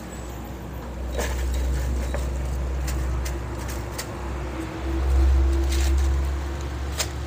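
Scattered light clicks and taps of incense sticks being laid out on a metal drying rack, over a steady low rumble that swells about five seconds in.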